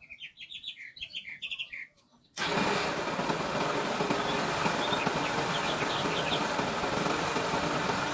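A bird chirping briefly, then about two and a half seconds in a loud, steady motor noise starts abruptly and keeps running, as the motorcycle's starter relay is tested.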